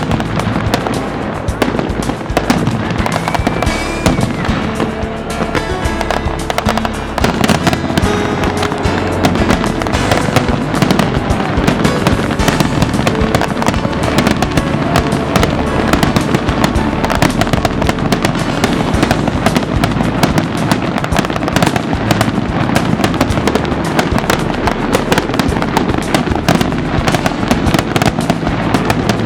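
Aerial fireworks display going off in a rapid, near-continuous barrage of bangs and crackles, growing denser about a quarter of the way through.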